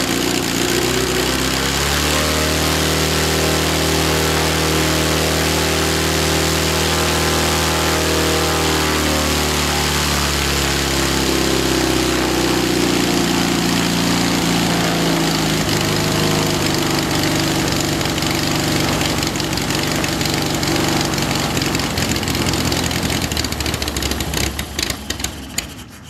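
AeroVee 2180 air-cooled flat-four aircraft engine with a Rotec throttle-body injector, running on its first start and turning the propeller. It runs steadily at higher RPM, is throttled back to a slower, rougher idle about fifteen seconds in, and is shut down near the end, the engine stopping. The engine runs well above about 2,000 RPM, and the idle circuit needs adjusting.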